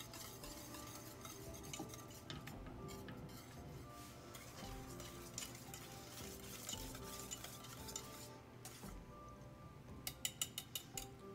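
Wire whisk stirring thick lemon filling in a stainless steel saucepan, with a faint continuous scraping and clicking against the pan. Near the end comes a quick run of about eight sharp taps as the whisk is knocked against the pan.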